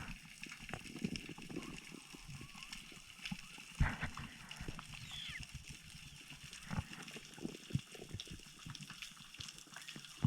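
Underwater ambience: scattered clicks and crackles over a faint hiss, with occasional low knocks and water movement. The loudest knock comes about four seconds in.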